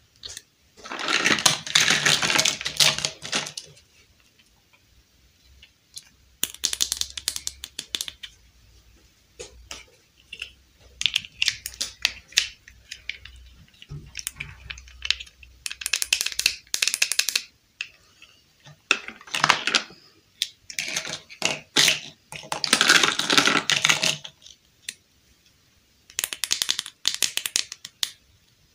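Small hard-plastic toy dollhouse furniture pieces being handled and snapped together: bursts of clicks and clatter with short pauses between them.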